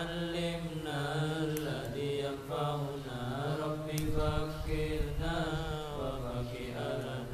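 A man chanting a prayer through a handheld microphone, in long melodic phrases with short pauses between them.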